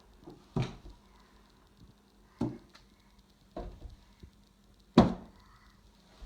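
Cut potato stamps knocking down onto wrapping paper on a table: four short thumps at uneven intervals, the last, near the end, the loudest.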